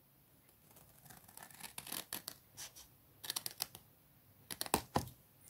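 Scissors snipping through cardstock, trimming off a flap: quiet, quick snips in three short runs, about two seconds in, just after three seconds, and again near the end.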